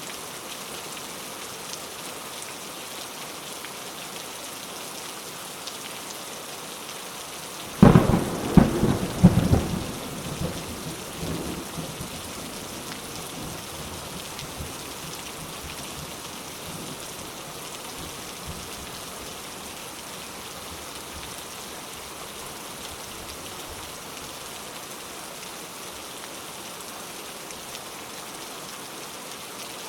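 Steady rain falling, with a sudden clap of thunder about eight seconds in that rumbles through several loud peaks for a few seconds before fading back under the rain.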